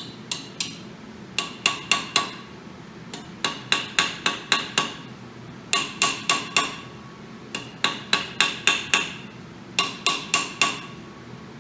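A hammer striking steel about thirty times in quick bursts of four to seven blows, each blow ringing briefly. The blows are shock blows to loosen a stuck dry cylinder sleeve held under sleeve-puller tension, and the sleeve does not move.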